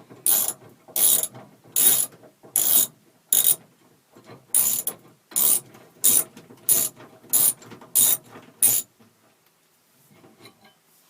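A socket ratchet wrench clicking in even back-and-forth strokes, about a dozen, roughly one every 0.7 seconds, as bolts are worked loose. The strokes stop about nine seconds in.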